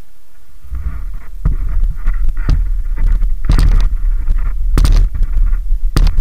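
Heavy low rumbling on the camera's microphone, growing louder, with several sharp knocks.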